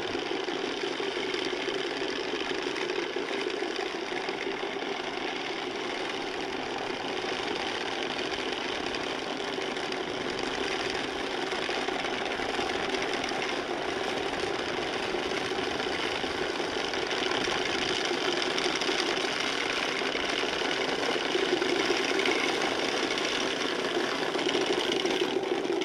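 Many hand-cranked wooden Easter rattles (Klappern) clattering together in a continuous dense racket. This is the Holy Week rattling that stands in for the silent church bells. It cuts off suddenly at the end.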